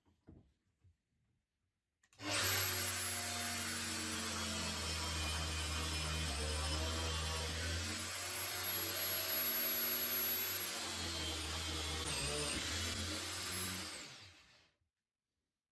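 A power tool's electric motor switches on about two seconds in and runs steadily for about twelve seconds with a high whine, then winds down.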